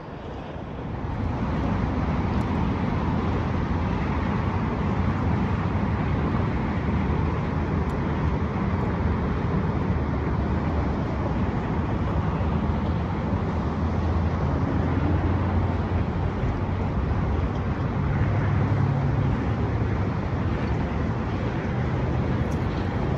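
Steady road traffic noise, a continuous low hum with no distinct events.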